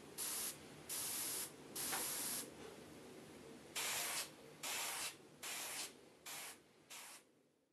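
Airbrush spraying red paint in about eight short bursts of hiss, the later bursts shorter, as thin coats are built up on the lure's gill area.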